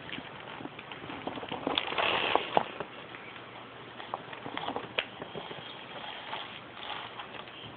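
Clear plastic bag crinkling and rustling as a cat noses and paws at it. The rustling is loudest about two seconds in, with a few sharp clicks scattered through it.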